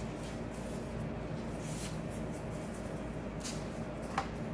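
Steady low room hum with a few faint brief rustles, and a short light knock near the end as a wooden rolling pin is picked up off the counter.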